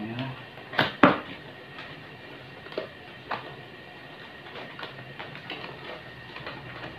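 Cardboard box being handled on a wooden board: two sharp knocks close together about a second in, then a few lighter taps and faint scrapes.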